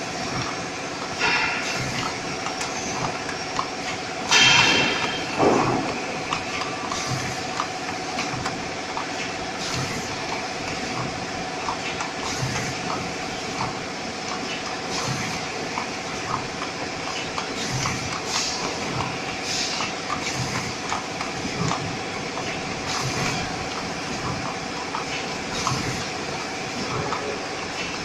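Automatic packaging machine running: a steady mechanical clatter with many small ticks, broken by a short hiss every two to three seconds, the loudest about four and a half seconds in.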